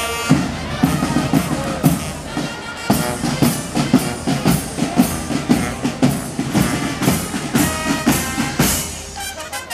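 Military marching band playing a march: field drums and bass drum beat about two strokes a second, with brass from sousaphones and trumpets sounding held notes at the start and again near the end.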